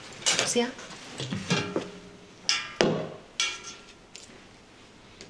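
Kitchen utensils clinking against crockery and a pot, about five short ringing clinks in the first three and a half seconds, as lou shui (braised soy) sauce is dished out to taste.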